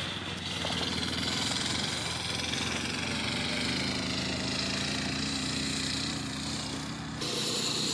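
Small engine of a dune buggy running steadily while it drives, its pitch drifting up and down a little. The sound changes abruptly about seven seconds in.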